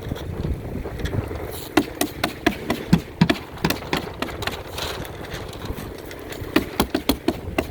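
Roofing work on a roof deck while ice and water shield is laid: quick runs of sharp taps, about four a second, starting near two seconds in and again near the end, over a steady low rumble.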